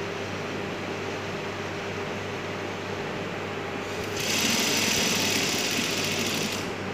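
Juki industrial sewing machine running a short burst of stitching, about two and a half seconds long, starting about four seconds in, as pleated cotton fabric is fed under the needle to sew the pleats down. A steady low hum runs underneath.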